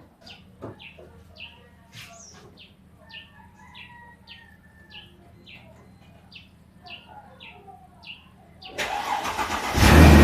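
A small bird chirps over and over, about twice a second, over a faint steady low hum. Near the end the Mercedes-Benz W163's engine starts up and runs loudly, drowning the bird out.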